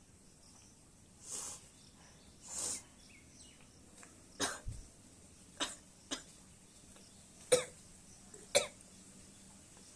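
A woman coughing on purpose: two softer, breathy sounds, then about five short, sharp single coughs in the second half.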